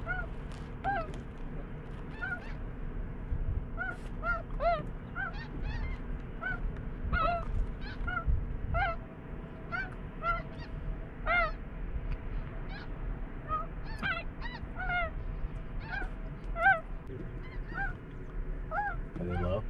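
Snow goose calls: a continuous chorus of short, high, yelping honks, several a second, each bending in pitch.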